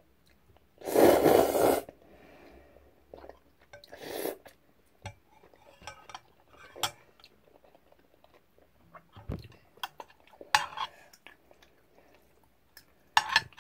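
Someone eating jjajang ramyeon: a loud slurp of noodles about a second in, then chewing with scattered clicks of a utensil against the bowl and a few more short slurps.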